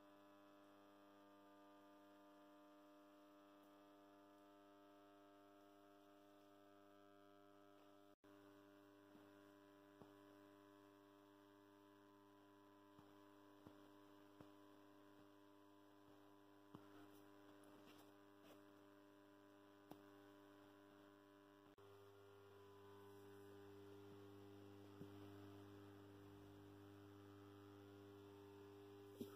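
Faint, steady mains-frequency hum from a running 150 W high-pressure sodium streetlight and its ballast: a low buzz with many overtones that grows somewhat louder about two-thirds of the way in. A few faint ticks come through it.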